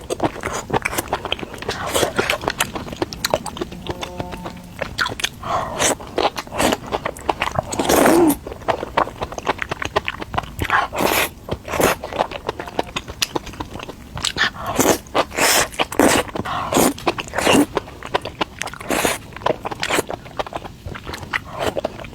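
A person eating: irregular bites and chewing, with frequent crisp crunches.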